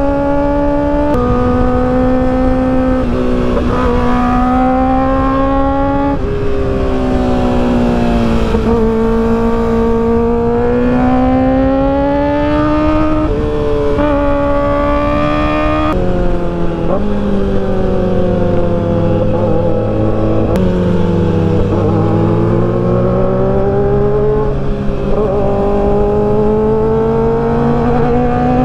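Kawasaki ZX-4RR's 399 cc inline-four engine revving high under hard riding. Its pitch rises and falls through the bends, with sudden steps at the gear changes, over steady wind rush.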